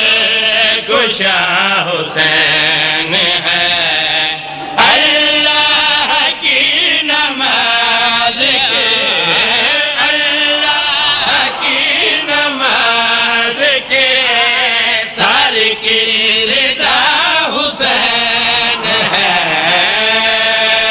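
A man chanting devotional verse through a microphone and loudspeakers in long, drawn-out melodic phrases, the pitch rising and falling on held notes, with a brief break about four and a half seconds in.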